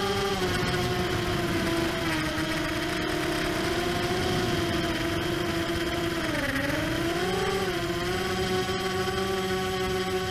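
ImmersionRC Vortex 250 Pro racing quadcopter's brushless motors and propellers whining, heard from the onboard camera with air rush. The pitch drops slightly about half a second in, dips lower and swings back up around six to seven seconds in, and returns to its first pitch about eight seconds in as the throttle changes.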